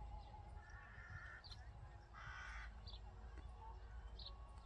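A crow cawing twice, a fainter drawn-out call about half a second in and a louder call around two seconds in, with a few faint small-bird chirps. A low rumble of wind on the microphone runs underneath.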